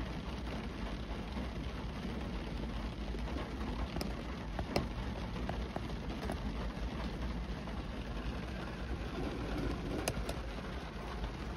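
Rain falling on a car's windshield and roof, heard from inside the car: a steady hiss over a low rumble, with a few sharper drop taps around the middle and again near the end.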